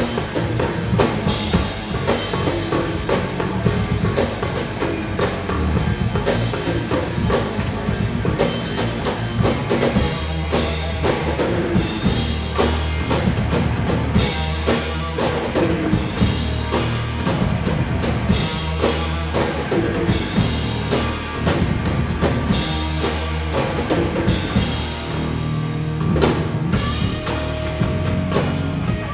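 Rock music led by a drum kit, with bass drum and snare beating out a steady rhythm over a heavy bass line.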